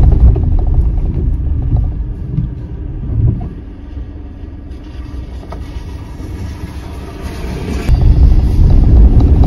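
Renault Kwid being driven: a low engine and road rumble, loud at first, easing off a few seconds in, then loud again for the last second or two.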